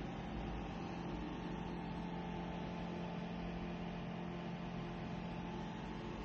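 Steady low hum with an even hiss, unchanging throughout: background room noise.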